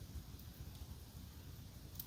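Wood fire crackling softly in a fireplace: a few faint pops over a low, uneven rumble.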